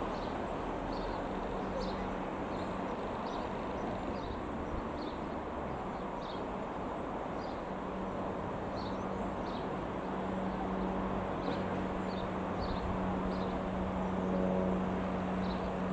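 A Piper PA-28-180 Cherokee's single piston engine drones steadily and grows louder from about halfway in as the aircraft approaches. Small birds chirp in short, repeated calls throughout.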